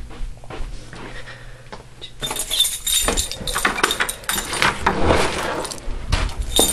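Faint clicks and handling noise, then from about two seconds in a louder rush of rattling and clattering, with jingling, as the front door is unlocked and opened.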